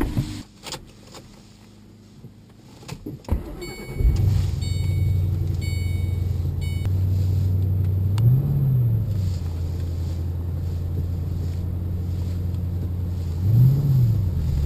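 A thump right at the start, then a few quiet seconds with small clicks. About four seconds in, the Ford Mustang Bullitt's 4.6-litre V8 starts cold and settles into a steady idle, with a warning chime sounding over it for a couple of seconds. Engine speed rises and falls briefly twice, the second time near the end.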